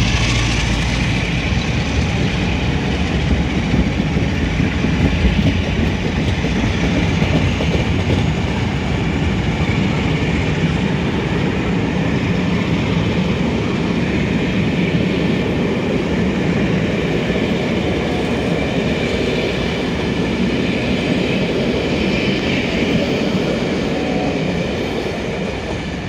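Rake of passenger coaches rolling past, wheels clicking over rail joints and pointwork in a steady run; the sound eases off a little near the end as the last coach goes by.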